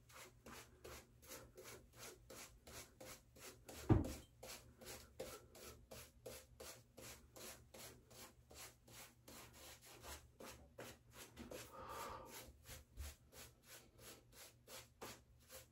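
Boar-bristle shaving brush scrubbing wet soap lather onto a bearded face: a faint, even scrubbing at about four to five strokes a second. A single low thump about four seconds in.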